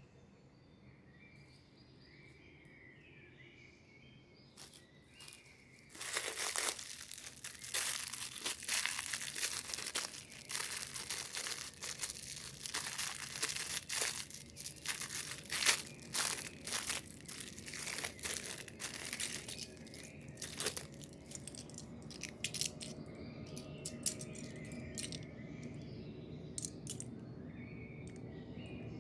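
Packaging torn open and crinkled by hand, a loud crackling and tearing that starts about six seconds in and lasts roughly fifteen seconds before easing to scattered small clicks. Faint bird chirping before and after it.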